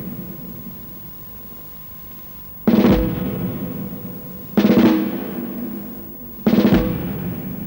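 Percussion-led film title music: three sudden loud drum rolls, evenly spaced about two seconds apart, each ringing out and fading before the next.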